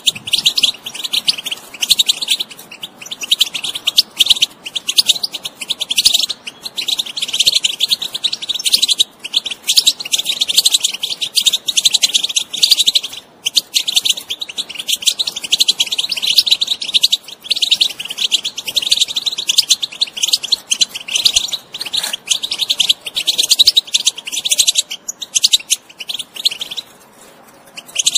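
European goldfinch singing: a fast, continuous stream of high twittering and chirping notes, with a short break about halfway and a brief lull near the end.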